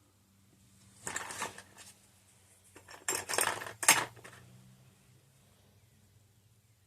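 Small steel lock washers and nuts clinking and jingling as they are handled and fitted onto the exhaust studs. There are two spells of clinking, about a second in and about three seconds in, and the second is louder and ends in a sharp clink.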